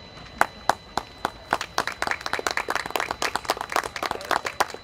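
Audience applauding: a few single claps about half a second in, building within a second or so into steady clapping from many hands.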